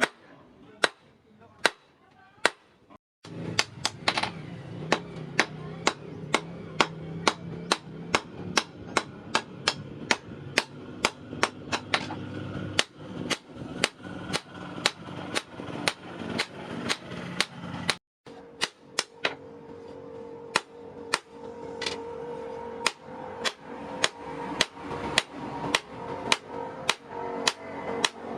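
Blacksmith's hammer striking iron in a steady rhythm of about two blows a second, forging a sword blade, over a steady hum.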